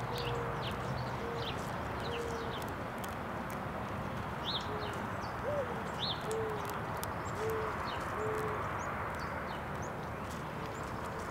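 Mourning dove cooing: soft low coos, with a rising-and-falling note about halfway through followed by three level coos. Short high chirps of small birds and a steady background hiss run underneath.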